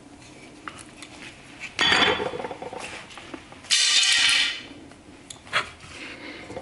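Knife edge being pushed through bamboo: two loud, brief crunching bursts about two seconds apart, with a few small knocks around them.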